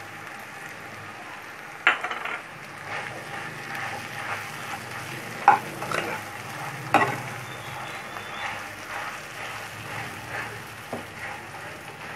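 Spatula stirring and mashing boiled potato in a nonstick pan over low heat, with a faint steady sizzle underneath. A few sharp knocks of the spatula against the pan stand out, about two, five and a half and seven seconds in.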